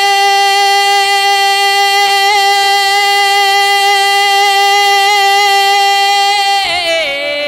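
A man holding one long, steady sung note of a naat through a microphone and PA. Near the end it steps down to lower notes.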